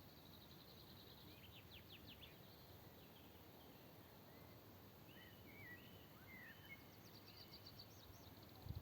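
Faint songbirds calling over a quiet background. First a rapid trill and a quick run of falling notes, then short whistled phrases and another fast trill. A soft low thump comes just before the end.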